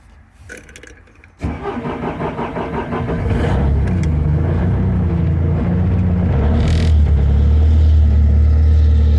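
Bobcat S250 skid steer's diesel engine cold-started after glow-plug preheat. About a second and a half in the starter cranks it briefly, the engine catches about three seconds in, and then it runs at a steady idle that grows a little louder near the end.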